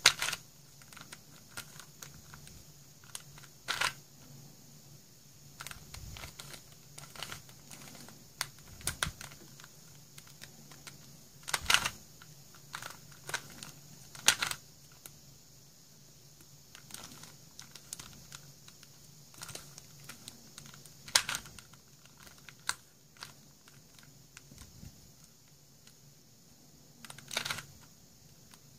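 Plastic layers of a 4-layer Super Square twisty puzzle clicking and clacking as it is turned by hand, in irregular runs of small clicks with a few louder snaps.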